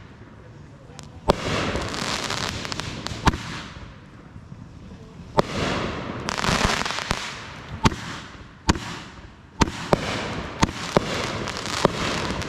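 Backyard consumer fireworks going off: a string of about nine sharp bangs, irregularly spaced a second or two apart, with a crackling hiss between them.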